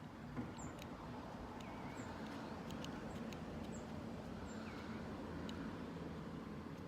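Faint scattered clicks of a combination bike lock being worked by hand, over a steady low hum.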